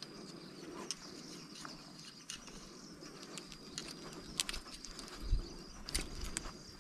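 Faint high insect trilling that breaks off and resumes, with scattered small clicks and two soft low thumps in the second half.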